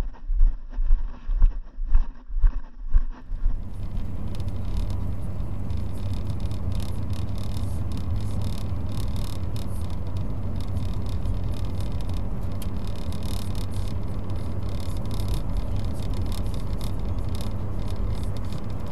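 Steady road and engine noise inside a car cruising at about 25 to 35 mph on worn asphalt, with a constant low hum. For the first few seconds, before this starts, there is a different sound: low thuds about twice a second.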